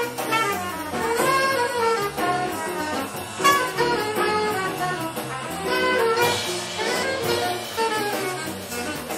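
Bebop jazz combo playing a fast line, with alto saxophone and trumpet to the fore and piano behind.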